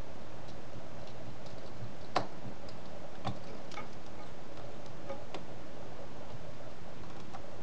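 Small irregular clicks and ticks of a precision screwdriver and fingers handling the screws and metal side bracket of a laptop screen panel, the loudest click about two seconds in, over a steady background hiss.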